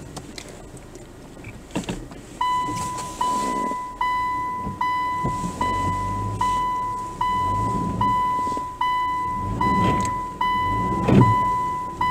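A car's electronic warning beeper starts about two seconds in and sounds a steady high beep that repeats roughly every 0.8 seconds. Under it, a low rumble of the car creeping over a rough dirt track comes and goes.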